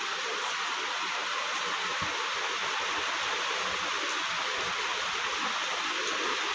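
A steady, even hiss with little low end, unchanging in level.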